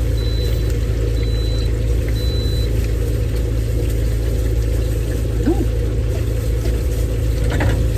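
Steady, loud low machine hum inside the food cart, with three short high beeps about a second apart early on.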